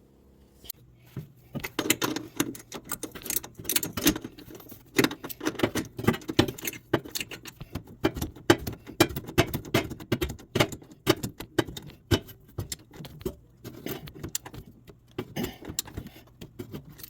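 Hand tools working metal fasteners: a steady run of sharp metallic clicks and clinks, several a second and unevenly spaced, like a wrench being worked on a bolt.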